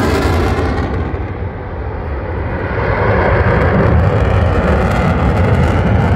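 F-16 fighter jet flying past, a dense jet-engine noise with a deep rumble. The high-pitched part fades after about a second, and the rumble then swells again.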